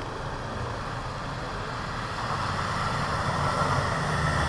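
Land Rover Defender driving along an off-road track, its engine running with a steady low drone that grows slowly louder as the vehicle comes closer.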